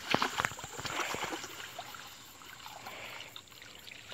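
Shallow swamp water sloshing and splashing as a hand net is swept through it and lifted out, with the loudest splashes in the first second.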